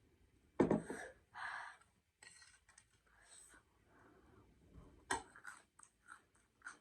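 Close-up mukbang eating sounds of wet, spicy chatpate (a puffed-rice snack): mouth noises and chewing in uneven short bursts, with a sudden thump about half a second in and a few sharp clicks.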